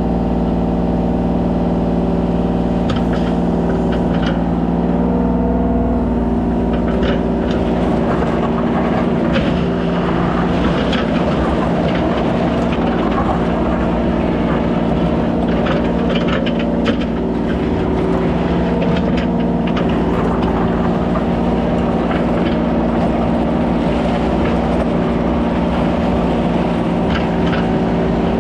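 Kubota 33 mini excavator's diesel engine running steadily under work, with irregular clicks and scrapes from the bucket working dirt and gravel through most of the stretch.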